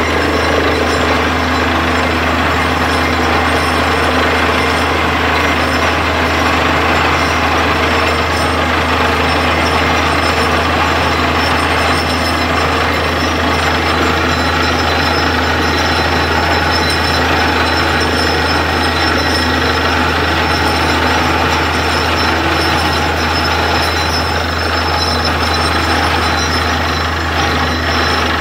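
Truck-mounted borewell drilling rig running steadily under load while drilling: engine and compressor drone with hammering from the drill. Water and slurry are splashing out of the bore around the casing.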